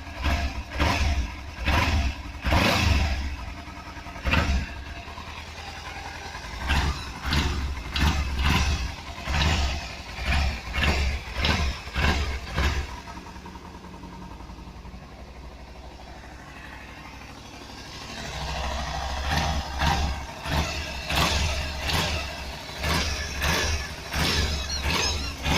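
Kawasaki Z300 parallel-twin engine running, blipped again and again, with a quieter steady idle in the middle. It carries the strange exhaust noise that the Kawasaki dealer put down to a broken catalytic converter.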